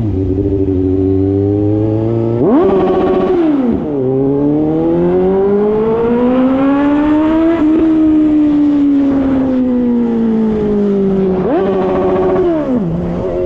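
Suzuki GSX-S750's inline-four engine, loud through a JBK exhaust tip with no baffle, ridden. About two seconds in it revs sharply and drops back a second later. The pitch then climbs steadily for a few seconds under acceleration and falls slowly as the throttle closes, and near the end there is another quick rev that drops away.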